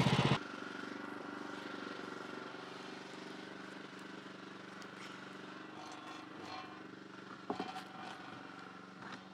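Small gasoline engine of a portable bandsaw mill, running loud for a moment, then dropping to a steady idle. A few short knocks come near the end.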